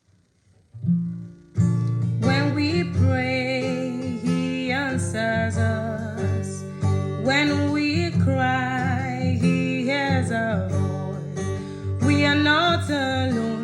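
Music: the introduction of a gospel song, with guitar and a wavering melody line over steady low notes, starting about a second in.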